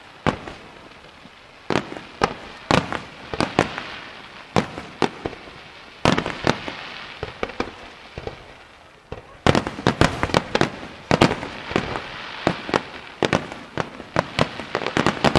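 Professional fireworks display: aerial shells bursting in a string of sharp bangs at uneven intervals, with hiss and crackle between them. The firing builds to a rapid volley about two-thirds of the way through.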